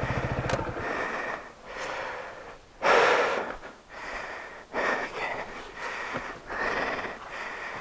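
Honda ADV scooter's engine idling, then cutting off about a second in, followed by a man's heavy, ragged breathing from exertion, with a loud exhale about three seconds in and more breaths after it.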